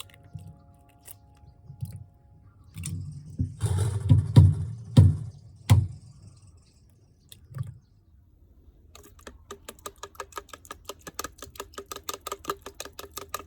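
Kitchen knocks and a brief noisy scrape, then from about nine seconds in a knife chopping rapidly on a cutting board, several even strokes a second.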